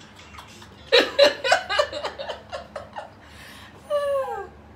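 A woman laughing in a run of quick giggles, then near the end one short cry that falls in pitch.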